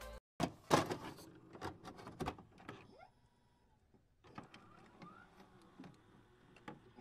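Glitchy electronic sound effect of a loading-screen transition: a quick run of sharp digital clicks and short whirring sweeps, densest in the first three seconds. After a pause of about a second come fainter, sparser clicks and a short rising sweep.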